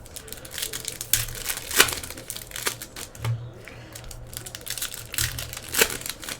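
A trading card pack wrapper being torn open and crinkled by hand, with irregular crackles and clicks as the wrapper is crushed and the cards are handled.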